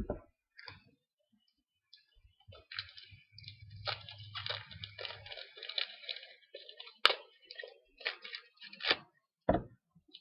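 Foil trading-card pack wrapper crinkling and tearing, with sharp clicks and taps as the cards are handled; the sharpest click comes about seven seconds in.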